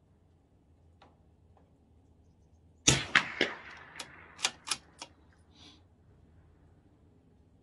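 A CZ 457 bolt-action .22 LR rifle fires one shot about three seconds in, with a short echo. A quick run of sharp metallic clicks follows as the bolt is worked to eject the case and chamber the next round.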